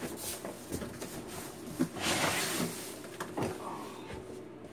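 Large cardboard box sliding and scraping as it is lifted up off a packed washer-dryer unit, with a few knocks of the cardboard and a longer rasp about two seconds in.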